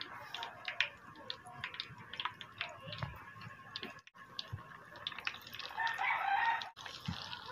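Hot cooking oil in a wok crackling with many small sharp pops. About six seconds in it hisses up louder as pieces of boiled pork mesentery go into the oil to deep-fry.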